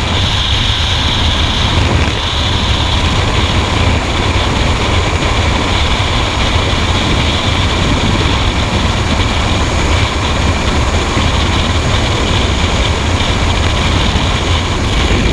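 Loud, steady rush of freefall wind buffeting a skydiver's helmet-camera microphone, with a deep rumble under a constant hiss.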